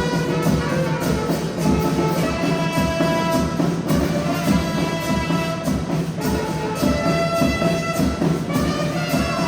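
Band music: brass instruments playing a melody over a steady drum beat.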